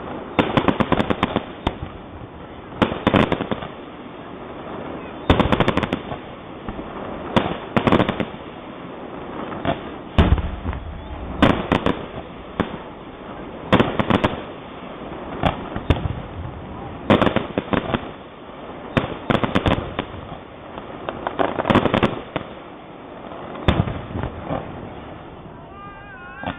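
Firework shells bursting in a grand finale: clusters of sharp bangs and crackling reports about every one to two seconds, one barrage after another.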